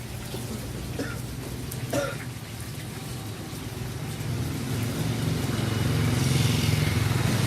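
A motor vehicle's engine running nearby, with a steady low hum that grows louder about five seconds in, along with some road noise. There are brief faint voices near the start.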